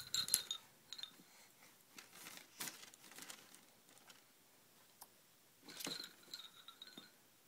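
Foil pinwheel blades rustling and crinkling as a baby grabs and shakes it, with scattered soft clicks; the loudest rustles come just after the start and about six seconds in.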